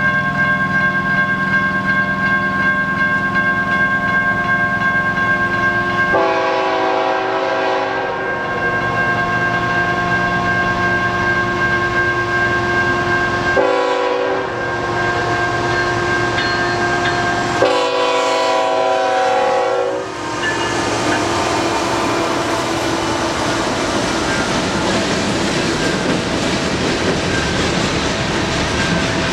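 CN freight train's GE ET44AC lead locomotive sounding its horn as the train approaches and passes. The horn sounds in several long blasts, changing pitch at each break, and stops about 20 seconds in. After that, the steady rumble and clatter of the freight cars' wheels rolling by takes over.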